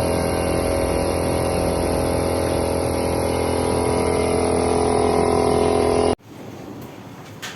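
A steady mechanical drone with several unchanging tones that cuts off abruptly about six seconds in, leaving only faint room sound.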